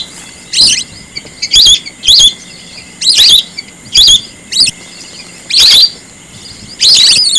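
Whistling duck calls, loud and shrill: a series of short, high, wavering whistles, about one every second.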